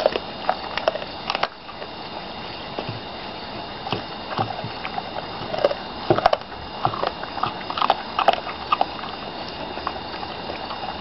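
American Pit Bull Terrier chewing a raw turkey neck: irregular wet crunches and sharp clicks of bone between her teeth, with short pauses, busiest in the second half.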